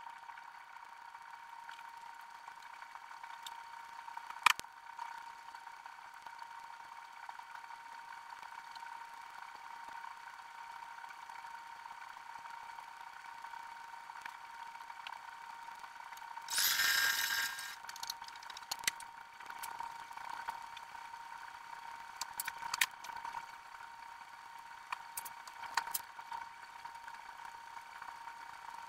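Sped-up sound of ironing fabric with a steam iron: a faint steady hum with scattered light clicks and taps, and one short hiss of about a second and a half about two-thirds of the way through.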